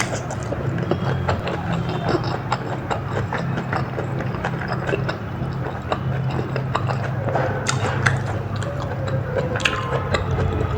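Close-miked eating: chewing and biting of food, with many short mouth clicks and smacks over a steady low hum.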